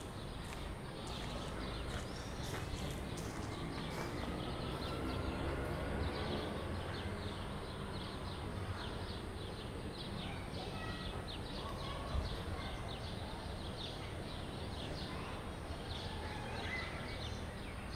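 Slow footsteps crunching on gravel, growing fainter as the walker moves away, over a steady outdoor background. A few faint bird chirps come later, with a single soft thump about twelve seconds in.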